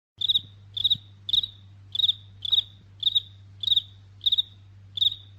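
A cricket chirping. Short high-pitched chirps, each of two or three quick pulses, repeat a little under twice a second over a faint low hum, and the sound cuts off abruptly at the end.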